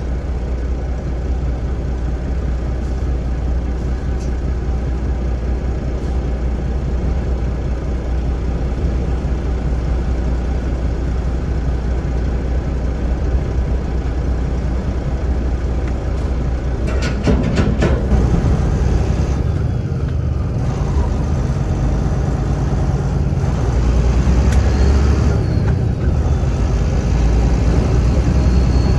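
Semi truck driving, heard from inside the cab: a steady low diesel engine drone with road noise, a short clatter about 17 seconds in, and the rumble growing a little louder near the end.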